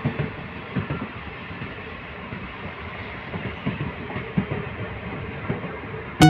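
Uttarbanga Express passenger train running on the line, its wheels clacking over rail joints in an uneven series of knocks over a steady rumble.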